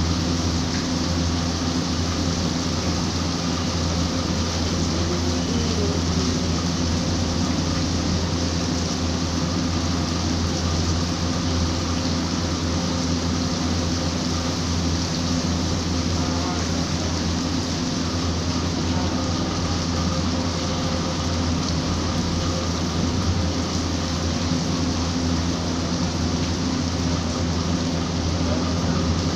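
Steady hiss of rain falling, even and unbroken, with a constant low hum underneath.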